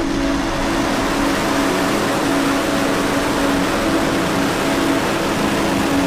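Falcon 9 rocket's nine first-stage Merlin engines at liftoff: a loud, steady, dense rushing noise with no breaks.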